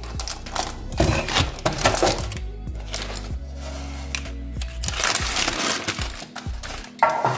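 Metal baking tin and round metal tray clinking and knocking as the cake is flipped out upside down, then baking parchment crinkling as it is peeled off the cake, over background music.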